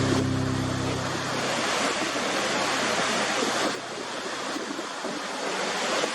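Steady rushing noise of sea waves and surf. A low held music chord fades out about a second in, and a little past halfway the rushing drops in level and changes character.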